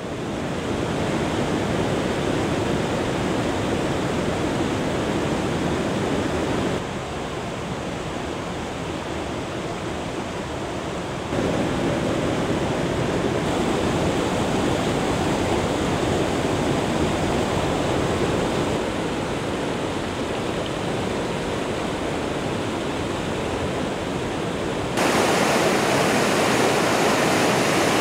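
Waterfall white water rushing over granite ledges in a steady, dense rush. Its level jumps abruptly up or down several times as the recording cuts between spots along the falls.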